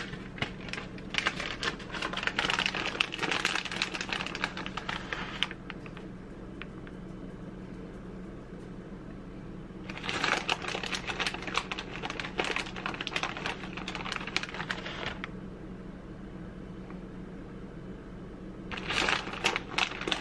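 Plastic shredded-cheese bags crinkling as cheese is shaken and sprinkled out of them, in three spells of rapid crackling, with a low steady hum underneath.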